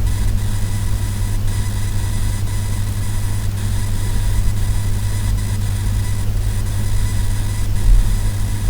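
HP Spectre x360 laptop's coil whine: a thin steady whine with faint irregular ticking, over a steady low hum that is the loudest part. The uploader ties the noise to the CPU power states, since it is gone when they are disabled.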